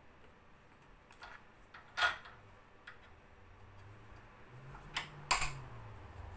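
Sharp metallic clicks of an Allen key working a brass fitting on a BBQ gas regulator held in a steel bench vise. One loud click comes about two seconds in and two more close together about five seconds in, with fainter taps between.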